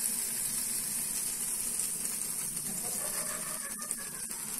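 Butter and pav bhaji sizzling with a steady hiss on a hot flat iron tawa.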